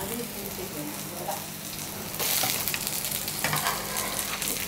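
Shrimp patties sizzling in oil in a frying pan on low heat, a steady hiss that grows louder about halfway through.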